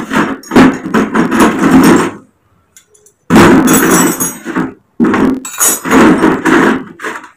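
Repeated knocking and clattering, like metal stove parts being struck and handled, in loud spells separated by short pauses about two and five seconds in.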